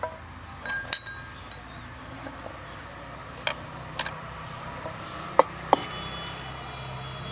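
Chopped vegetables being dropped into an aluminium saucepan and the pan being handled: about half a dozen sharp clinks against the metal, the loudest about a second in, some with a brief ring.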